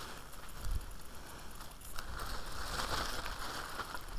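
Rustling and crackling of a mesh net and the grass and ferns under it as hands sort small live-bait fish out of it, with a few sharp clicks about halfway through.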